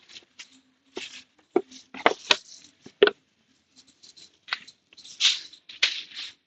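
Motorcycle drive chain being wetted down and worked over during cleaning: short, irregular hissing and scraping sounds with a few sharp clicks.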